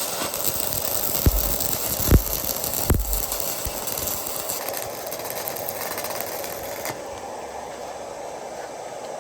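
Handheld arc welder's arc crackling and hissing as a bead is laid, with a few sharp knocks in the first three seconds; the arc stops about seven seconds in, leaving a fainter steady hum.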